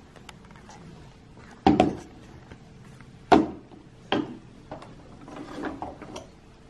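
Toys being handled and knocked together: three sharp knocks over the first few seconds, then lighter clicks and a short clatter.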